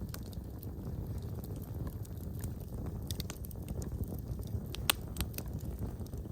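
Wood fire in a fireplace crackling: scattered sharp pops and snaps over a steady low rumble of burning, with the loudest pop about five seconds in.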